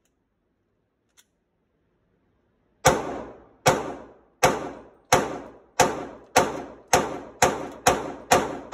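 Glock 27 pistol in .40 S&W fired in rapid single shots. After a faint click about a second in, about ten shots come, speeding up from roughly one every 0.8 s to about two a second, each echoing briefly off the walls of an indoor range.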